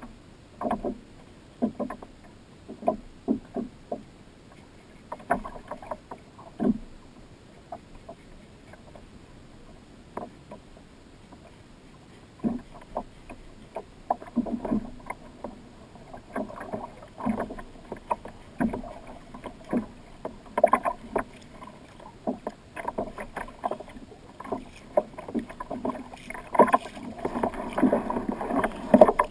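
Small waves slapping and knocking against the hull of a plastic Hobie fishing kayak as it rocks in the chop, in irregular hollow knocks and splashes. Sparse for a few seconds in the first half, more frequent and busier near the end.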